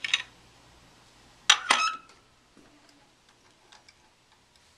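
Two sharp metallic clinks about a second and a half in, the second with a short ringing, then faint scattered ticks and clicks: metal parts being handled on a Singer 20U industrial sewing machine while it is being oiled.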